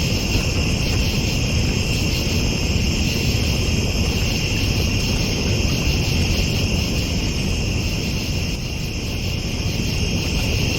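Steady, slightly pulsing chorus of night insects such as crickets, over a low rumble.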